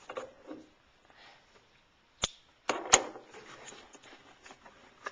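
A cardboard shipping box being opened and handled: rustling of flaps and packing, with two sharp knocks about two and three seconds in.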